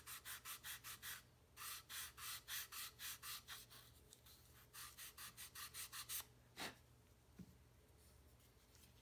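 Sanding block rubbed back and forth over the edge of a small balsa wood part, sanding its bottom edge level: quick strokes, about four to five a second, in three runs with short pauses between. A single sharp tap comes near the end.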